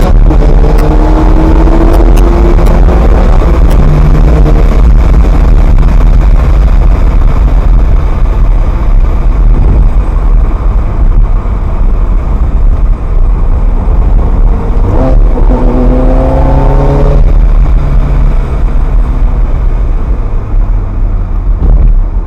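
Ferrari F430's V8 engine under hard acceleration, very loud, with the revs climbing near the start and again about fifteen seconds in, then dropping off suddenly a little after.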